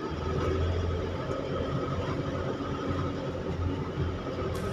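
A vehicle's engine running steadily while driving, a low even hum with road noise.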